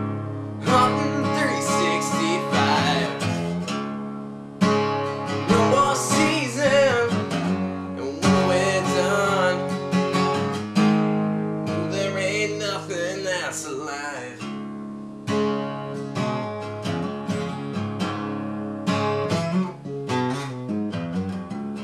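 Acoustic guitar strummed and picked with a man singing over it in phrases. The voice drops out about two-thirds of the way through and the guitar carries on alone.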